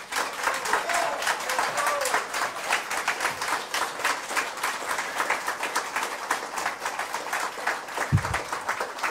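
Audience applauding, dense steady clapping, with a voice or two calling out in the first couple of seconds and a brief low thump about eight seconds in.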